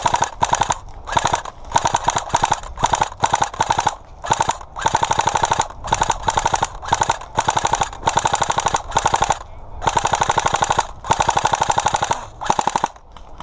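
Airsoft guns firing rapid full-auto bursts, one burst after another, each lasting about a second with short pauses between.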